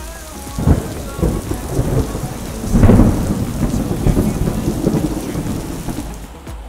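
Thunder rumbling and crackling over heavy rain, swelling to its loudest about three seconds in and dying away near the end.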